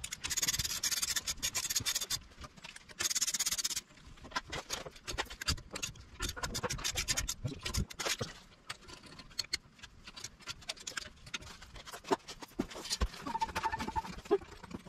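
Hand socket ratchet clicking as wheel lug bolts are run down. There are two fast runs of dense clicking in the first four seconds, then slower, scattered single clicks and light metal knocks.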